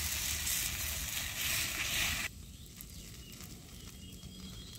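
Chakuli batter sizzling on a hot iron tawa, a steady hiss that cuts off abruptly a little over two seconds in, leaving only faint background.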